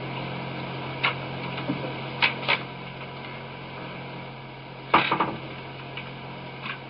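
Steady hiss and low hum of an old tape recording of a room, broken by a few short faint noises, the loudest a brief cluster about five seconds in.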